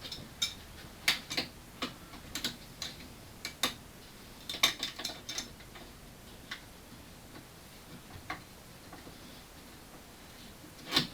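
Irregular light metallic clicks and clinks of a socket and wrench being handled and fitted, bunched in the first half, sparser later, with a louder clink near the end.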